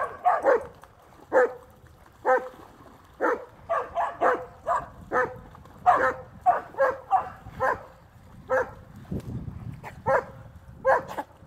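A dog barking over and over, short barks in quick irregular runs, about twenty in all, with a brief lull around nine seconds in.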